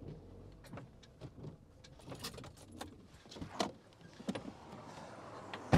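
Ford Transit van's driver's door: scattered clicks and rattles at the open door, then the door slammed shut near the end, the loudest sound.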